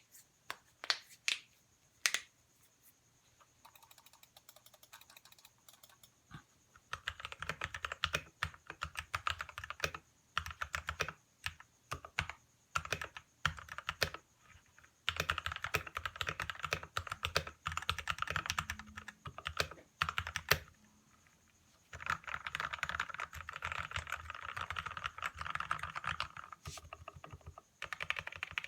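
Royal Kludge RK61 mechanical keyboard with Gateron Black linear switches being typed on. A few single keystrokes first, then fast runs of typing broken by short pauses.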